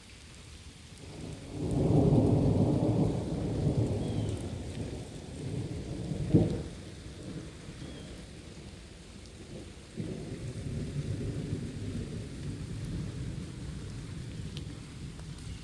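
Thunder rolling: a low rumble swells about a second in and slowly fades, a short sharp crack comes near the middle, and a second rumble starts abruptly after about ten seconds and carries on.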